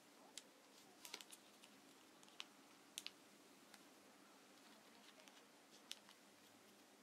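Origami paper being folded and creased by hand: faint, sharp crinkles and ticks of the paper. There is a quick cluster about a second in and single ones near two and a half, three and six seconds.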